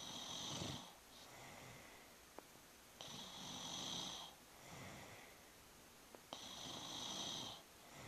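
A sleeping man snoring, with a rasping snore roughly every three seconds, three in all, and softer breathing between them.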